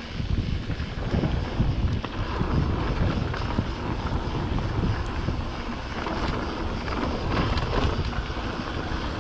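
Wind buffeting the microphone of a mountain bike rolling down a dirt trail, with the rumble of the tyres on the packed dirt and occasional clicks and rattles from the bike.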